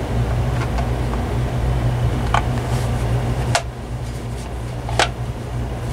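A steady low electric hum with several sharp plastic clicks and knocks of small fan parts being handled; the hum's upper hiss eases a little past halfway.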